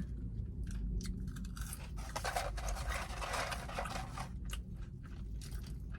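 Close-miked eating sounds: chewing with irregular scrapes, soft crunches and small clicks.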